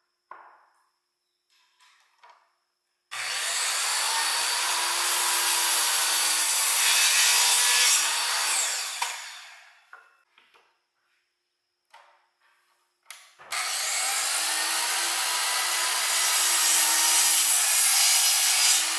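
DeWalt miter saw started twice, each time running for about six seconds as the blade is brought down through a wooden board, then spinning down. A few light knocks come between the two cuts as the board is set in place.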